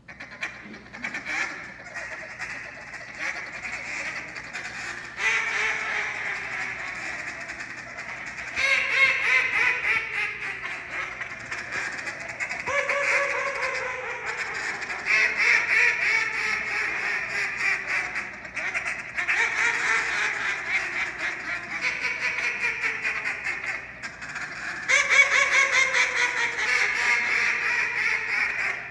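Hand-blown duck calls in a two-caller team routine. Runs of loud quacks step down in pitch, a few seconds each, with fast chattering calls between them.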